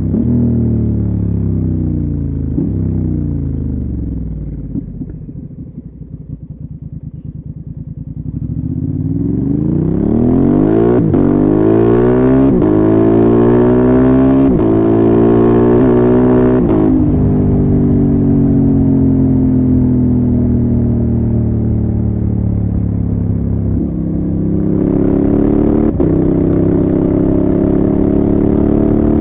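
Honda Transalp XL750's 755 cc parallel-twin engine through a MIVV exhaust with the dB-killer removed. Revs fall as the bike slows and drop to a low rumble for a few seconds, then it accelerates hard through the gears with four quick clipped upshifts from the quickshifter, settles to a steady cruise, and pulls again near the end with one more shift.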